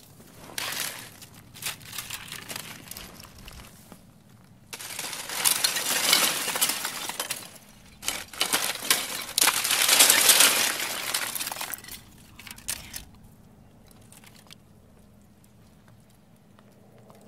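Candle ice crumbling, its long needle-like crystals clinking and crackling together like glass in several rushes. The loudest rushes come in the middle; near the end only a few faint clinks remain.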